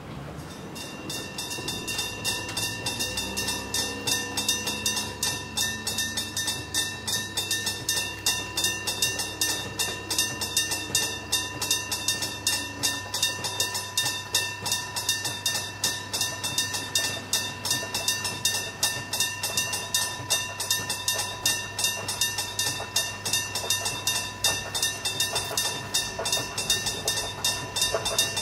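A level-crossing electric bell (a hammer striking a gong) starts ringing about a second in and keeps on in rapid, even strokes, warning that a train is approaching. Under it in the first half, a diesel railcar's engine drone glides slightly in pitch.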